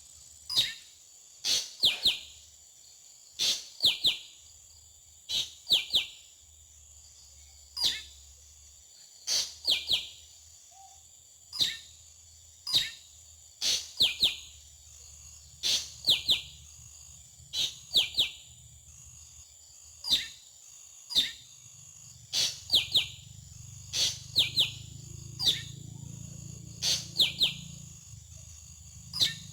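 Drongo calling over and over: a sharp, quick downward note every one to two seconds, often given twice in a row, over a steady high-pitched insect-like hiss.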